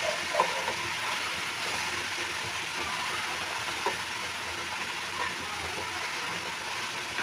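Sliced bitter gourd frying in oil in a metal kadai, a steady sizzle as it is sautéed, with a few light scrapes and taps from a metal spoon stirring it.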